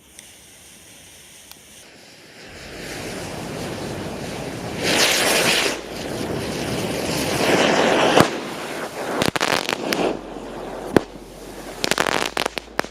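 A firework fountain hissing as it sprays sparks. The rush builds over the first few seconds and swells loudest around the middle, then breaks into a run of sharp crackles and pops near the end.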